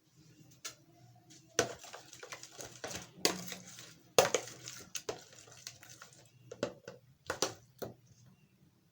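A utensil clinking and scraping against a bowl in irregular bursts of sharp knocks while eggs are being mixed into the seasoned ingredients. The loudest knocks come about a second and a half in and again about four seconds in.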